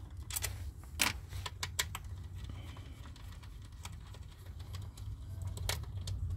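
A few light metallic clicks and clinks from a socket and extension being spun by hand to undo the hex-head screws of a throttle body, over a steady low rumble.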